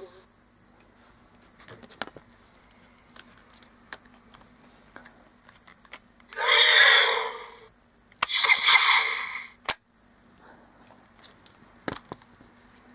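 Two short electronic dragon sound effects from a Blast & Roar Toothless toy's small speaker, each about a second and a half long, one after the other roughly six to nine seconds in. Scattered plastic clicks from the toy being handled sound around them.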